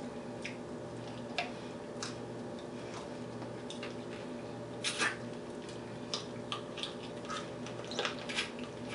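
Wet mouth sounds of a person eating fufu by hand: scattered lip smacks and squelchy chewing, the loudest smack about five seconds in, over a steady low hum.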